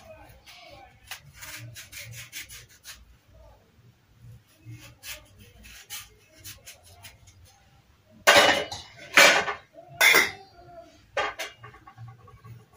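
Kitchen knife scraping and cutting the skin off a butternut squash: a run of quick, light strokes at first, then three loud, longer scraping strokes about eight to ten seconds in.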